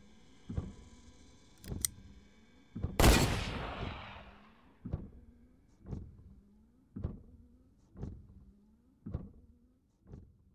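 A single gunshot about three seconds in, loud and sudden with a long fading tail, with a sharp click a second before it. A deep thud repeats about once a second throughout, and a low steady hum stops at the shot.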